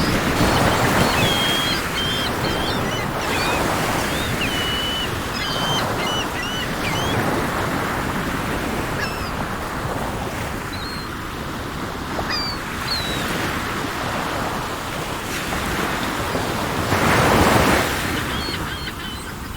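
Sea surf washing in waves, swelling loudest just after the start and again near the end. Small birds chirp and whistle over it, mostly in the first half.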